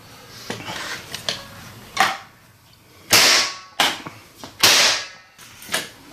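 Single-shot powder-actuated nail gun (Ramset) firing .22-calibre loads to drive 2.5-inch pins through treated lumber into a concrete floor. Several sharp bangs, the loudest about three and four and a half seconds in, with lighter clicks and knocks between.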